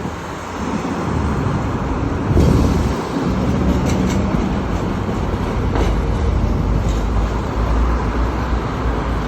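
LVS-86K tram running along the rails, heard aboard: a steady low rumble with a few short sharp clicks.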